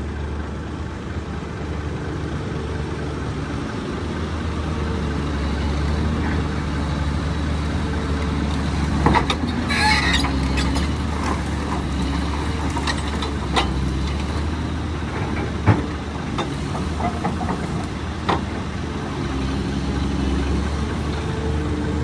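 Dump truck's engine running steadily, with scattered knocks and rattles and a short burst of hiss and clatter about ten seconds in.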